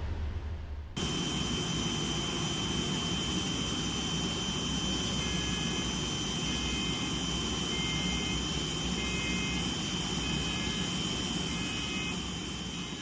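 Jet aircraft noise: a steady rush with a high, even whine, starting abruptly about a second in and fading out near the end.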